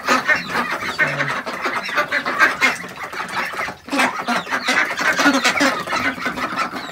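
A flock of ducks quacking loudly, many calls overlapping in a constant racket, with a brief lull a little before four seconds in.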